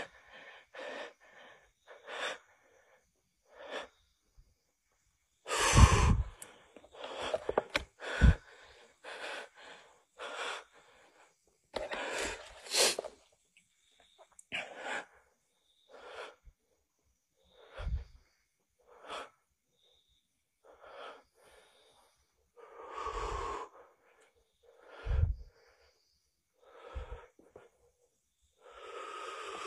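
A person breathing heavily close to the microphone: short breaths about once a second, with a few louder ones.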